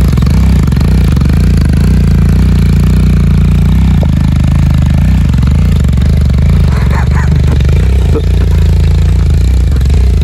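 Motorcycle engine running loud and steady, holding a constant speed.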